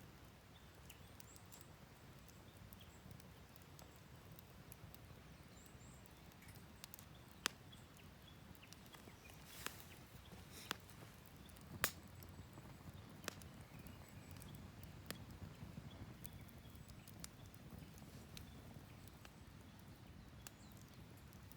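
Wood fire burning quietly, with scattered sharp crackles and pops from the burning wood over a faint low rumble; the pops cluster a few seconds into the sound.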